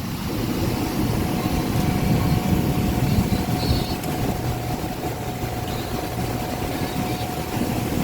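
Aircraft engine noise: a steady low rumble with a faint steady whine above it.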